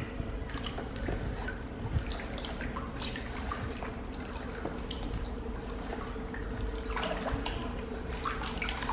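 Water sloshing and dripping in a plastic basin as a natural sharpening stone is scrubbed and dipped by hand, with a few sharper splashes near the end.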